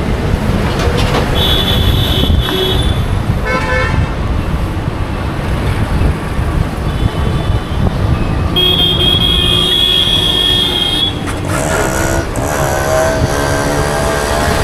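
Busy city road traffic: a steady rumble of engines and tyres, with vehicle horns honking. There are several short toots in the first four seconds and one long horn held for about two and a half seconds past the middle. Near the end a lower pitched tone wavers, then holds.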